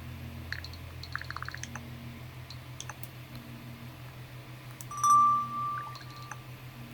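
A steady low electrical hum, with a quick run of light clicks about a second in and one short steady electronic beep about five seconds in.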